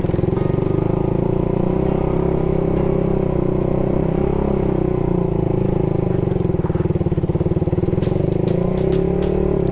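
Motorcycle engine running steadily under load on an uphill climb, its pitch rising slightly twice. A run of light clicks comes near the end.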